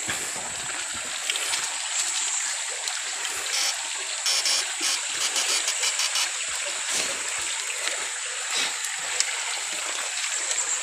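Shallow stream water running and splashing as people wade through it, with irregular small splashes over a steady high whine.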